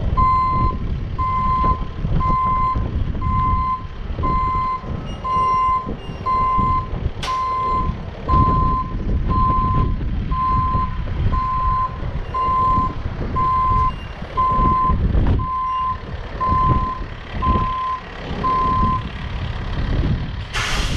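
Rollback flatbed tow truck reversing: its backup alarm beeps steadily about once a second over the low rumble of the engine, and the beeping stops near the end as the truck halts. A sharp click about a third of the way in, and a short loud hiss just before the end.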